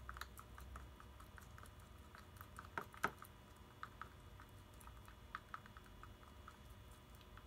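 A small spatula stirring sticky slime mixture of glue and paint in a plastic jar: quiet, irregular little clicks and taps against the jar, with one louder knock about three seconds in.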